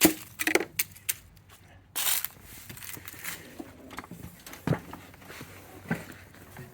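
A few sharp clicks and knocks, the loudest at the start and a short rasping burst about two seconds in, from an attempt to start an Ariens 20 hp lawn tractor. The starter does not crank the engine, which is stuck in compression lock.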